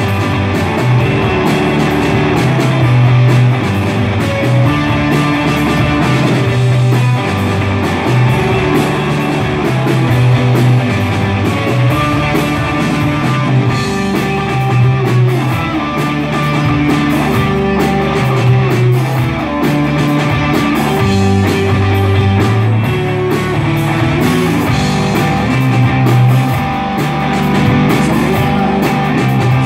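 Indie rock band playing live: electric guitars, bass guitar and drum kit in a loud, driving song with a bass line that moves every second or so.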